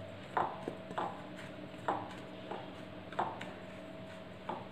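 Wooden spoon stirring dry flour in a ceramic bowl, scraping and knocking against the bowl in short strokes roughly once a second.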